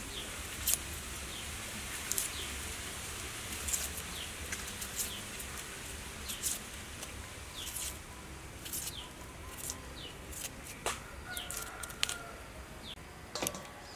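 Kitchen knife cutting and peeling the skin off a hand-held onion: a series of short, crisp crackling cuts about once a second, over a steady hiss.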